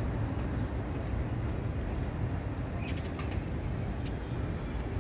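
Steady low outdoor background rumble, with a few short bird chirps about three seconds in.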